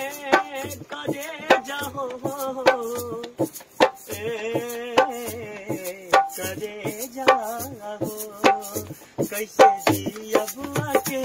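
Dholak hand drum beating out a steady folk rhythm, with a man singing a Bhojpuri folk song over it in long, wavering held notes.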